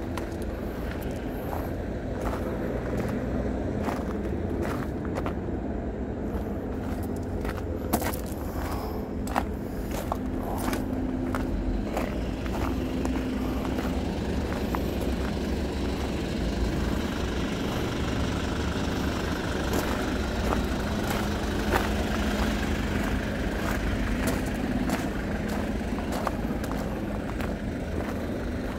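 Vehicle engine idling with a steady low rumble, with scattered light clicks and taps over it.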